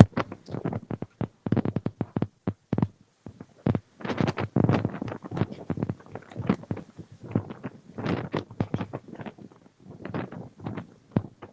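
Storm wind gusting over a doorbell camera's microphone, heard as irregular crackling bursts of noise.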